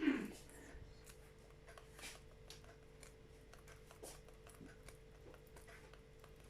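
Faint, scattered soft taps and clicks of a chicken pecking at pieces of bread, over a faint steady hum.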